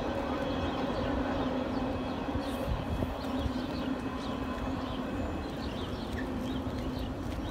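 A train running steadily, a continuous rumble with a low hum, with birds chirping over it.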